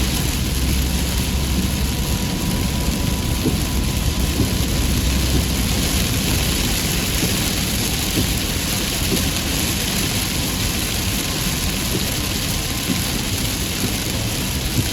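Heavy rain falling steadily, with a low vehicle engine hum underneath that fades out about five seconds in.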